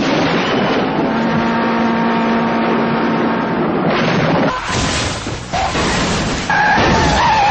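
Car crash and explosion sounds: a dense, loud rumble with a steady hum through the first few seconds, then a sudden new crash about four seconds in.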